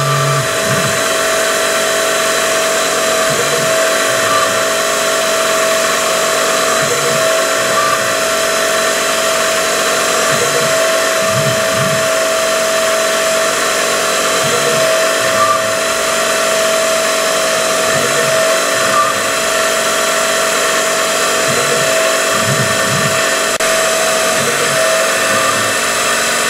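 Syil X3 CNC mill's spindle running with a steady high whine as a spot drill cuts M3 hole starts in a row of aluminium bodies. A low hum swells every few seconds.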